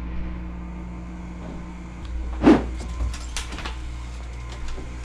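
A steady low hum in the room, with one loud thump about halfway through followed by a few light clicks and knocks as people move about.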